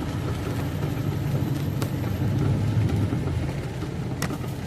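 Semi-truck engine and road noise heard from inside the cab: a steady low rumble that swells a little in the middle, with two brief clicks, one near the middle and one near the end.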